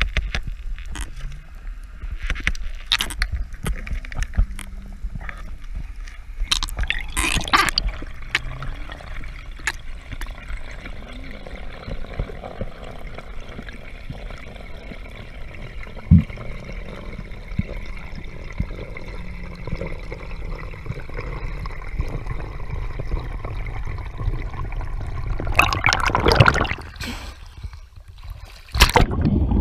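Underwater water noise on a spearfisher's camera during the ascent: a steady low rumble with scattered clicks and a few brief gurgles, then loud splashing as the diver breaks the surface near the end.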